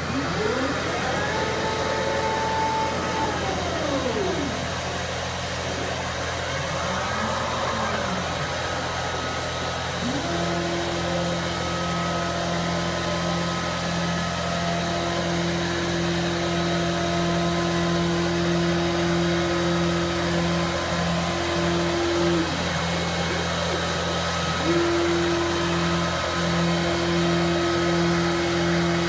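CNC laser cutting table running a cut: the gantry's drive motors whine, rising and falling in pitch as the head speeds up and slows down, then holding a steady tone on long straight runs. A constant machine hum runs underneath.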